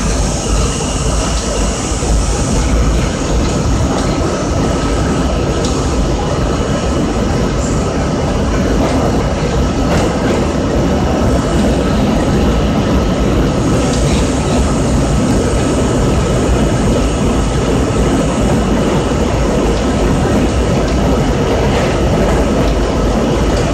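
R32 subway train running at speed through a tunnel, heard from inside the car: a loud, steady rumble of wheels on the rails, with a steady thin whine over it.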